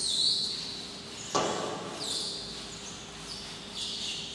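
Handheld whiteboard eraser wiping marker writing off a whiteboard in several short, high-pitched rubbing strokes about a second apart, with one sharp knock about a second and a half in.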